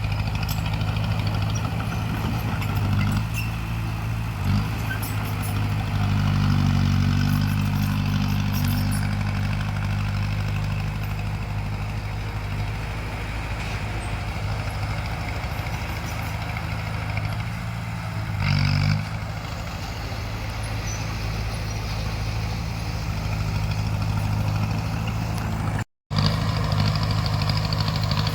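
Bulldozer's diesel engine running steadily, working harder for a few seconds about a third of the way in, with a few short clanks.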